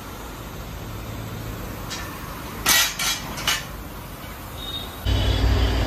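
A few sharp metal clanks close together about three seconds in, from a tyre repairman levering a tyre on a manual tyre-changer stand with a long steel bar during a puncture repair. About five seconds in, a loud low rumble starts.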